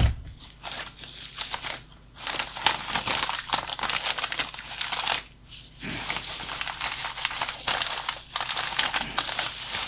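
Plastic bags and bubble wrap crinkling and rustling as they are handled, on and off, with brief pauses about two seconds in and just past halfway. A thump right at the start.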